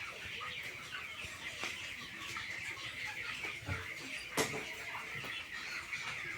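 A flock of chickens calling continuously, a dense chatter of short high peeps. One sharp knock about four and a half seconds in.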